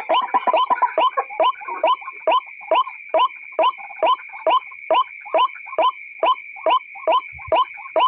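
White-breasted waterhen (ruak-ruak) call repeated in a very even rhythm, about two to three short notes a second, each falling in pitch. It is a decoy recording played to lure the birds. A steady high-pitched hum runs under it.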